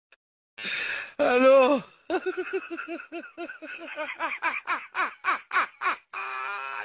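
A person laughing hard: a loud rising-and-falling cry about a second in, then a long run of short, rhythmic ha-ha pulses that quicken as it goes on.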